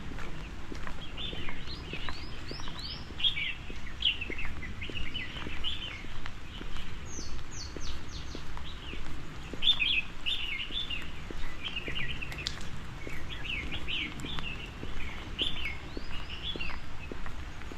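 Songbirds chirping busily, many quick short calls overlapping throughout, with a few higher, thinner calls about seven seconds in, over a steady low outdoor rumble.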